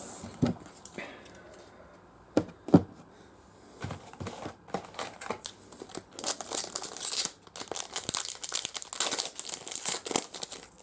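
A few light knocks, then a trading-card pack's wrapper crinkling and tearing as it is opened, continuous from about six seconds in.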